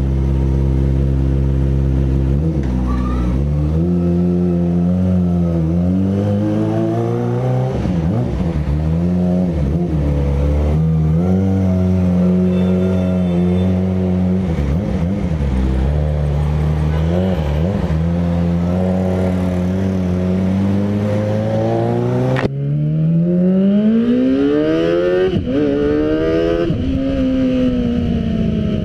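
Kawasaki ZX-25R's 250 cc four-cylinder engine through an Arrow exhaust, ridden on the road: the engine note rises and falls with the throttle and holds steady for stretches. In the last few seconds it climbs in pitch, with short dips at the gear changes.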